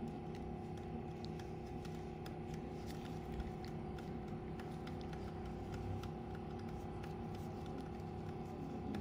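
Steady background hum, with two faint held tones and many faint scattered ticks.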